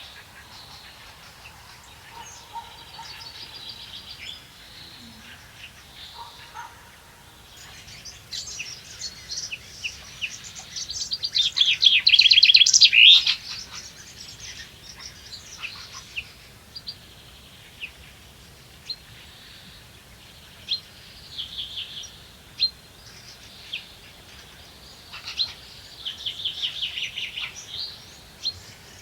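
Songbirds singing: scattered chirps and several short trilled songs. The loudest is a rapid trill of about two and a half seconds near the middle, and another comes near the end.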